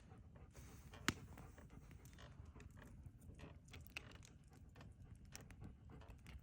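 Near silence with faint low rumble and scattered small clicks, and one sharper click about a second in.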